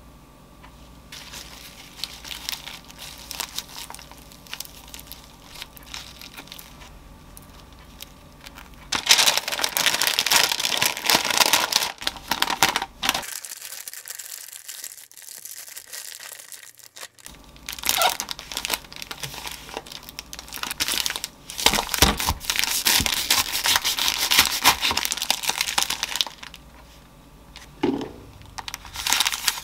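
Sandwich parchment paper crinkling and rustling in long stretches as it is folded and pressed tightly around a sandwich, with a short pause partway through and a single knock near the end.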